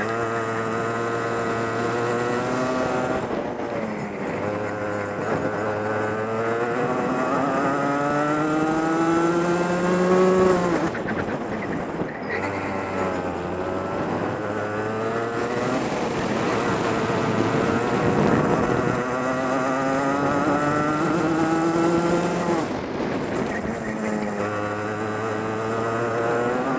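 Onboard sound of a racing kart engine under a lapping driver: its pitch climbs steadily for a few seconds as it accelerates along each straight, then falls sharply as the throttle is lifted for a corner. This happens several times.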